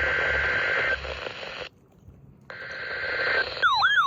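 NOAA Weather Radio Emergency Alert System (EAS) test received through heavy static: bursts of the buzzy two-tone SAME data header. One burst ends about a second in, the static drops out briefly, and another burst runs from about two and a half seconds. Near the end comes a short warbling whistle that twice swoops down and back up.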